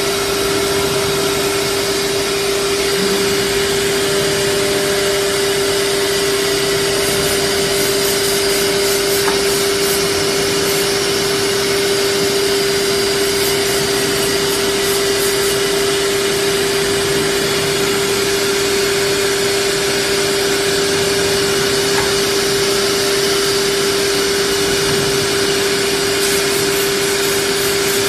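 Holztek HT-R4F four-head CNC nesting router running, a steady whine over an even rushing hiss from its dust extraction.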